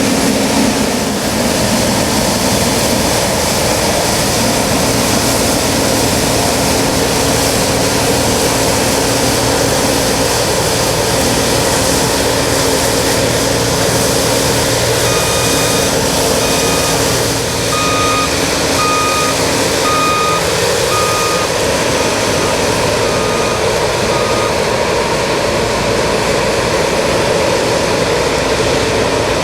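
New Holland CX8090 combine harvester running steadily, a loud, constant mechanical din. About halfway through, a beeping alarm sounds roughly once a second for about ten seconds.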